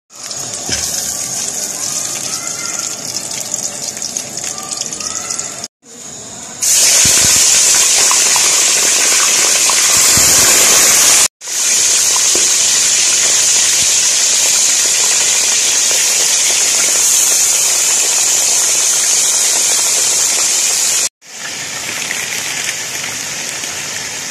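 Hot fat sizzling in a steel karahi, then a loud, steady sizzle of chicken pieces frying in the oil. The sizzle cuts off abruptly and resumes a few times.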